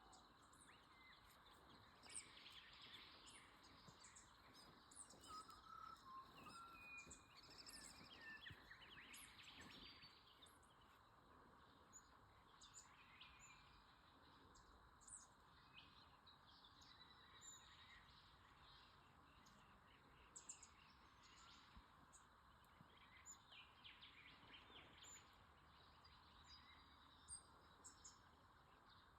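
Quiet outdoor ambience with faint, scattered bird chirps and calls throughout.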